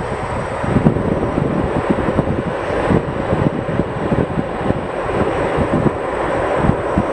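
Jet aircraft engines running, a steady rushing noise, with wind buffeting the microphone.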